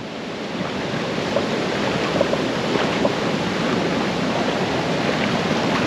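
Steady rush of flowing water at a rainforest swimming hole.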